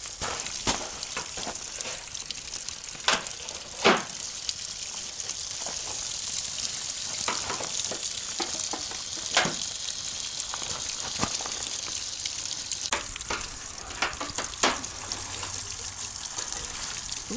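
A screwdriver scraping and prying at torn foil-faced lining in the bottom of a solar hot water collector: scattered sharp scrapes and crackles over a steady hiss.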